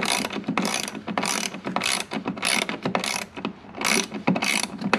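Socket ratchet clicking in quick back-and-forth strokes, about two a second, tightening a 10 mm nut onto a bolt.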